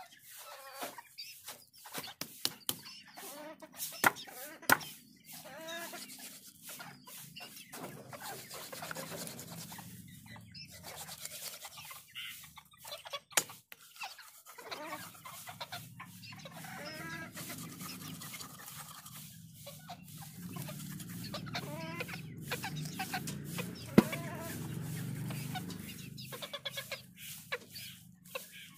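Chickens clucking over and over, with a few sharp knocks of a knife blade chopping fish on a wooden board, the loudest near the end.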